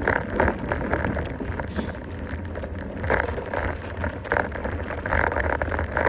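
Mountain bike rolling over a rough trail, with steady tyre noise and irregular rattling clicks, and a low rumble of wind buffeting the microphone.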